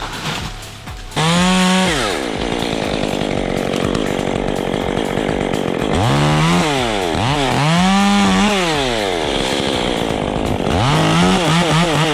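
Chainsaw engine revving up and down repeatedly, starting about a second in, with a steadier, lower-pitched stretch in between.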